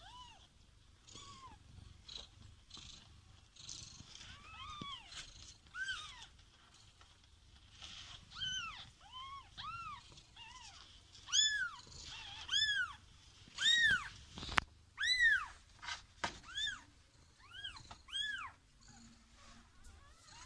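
Newborn kittens mewing: a run of short, high-pitched cries that rise and fall in pitch, one or two a second, growing louder after the first half. There is one sharp knock about two-thirds of the way through.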